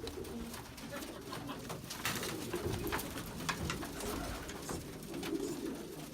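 Domestic pigeons cooing continuously inside a loft, with scattered sharp clicks and scuffs from the birds moving about.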